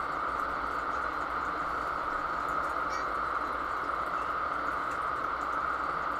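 Steady hiss of running machinery, unchanging throughout, with a faint light click about three seconds in as a metal part is handled.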